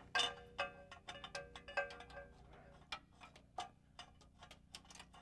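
A string of irregular light metallic clicks and clinks as an oxygen sensor is threaded by hand into the bung of an exhaust header; the first clinks, just after the start, ring briefly.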